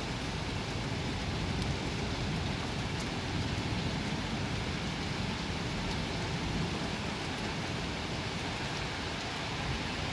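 Heavy rain falling steadily, an even hiss with a few sharp drop ticks.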